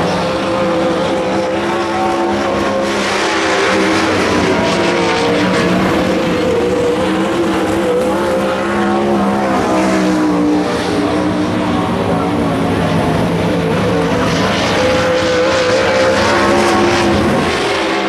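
Several race car engines running at once: a loud, steady din of overlapping engine notes that drift up and down in pitch.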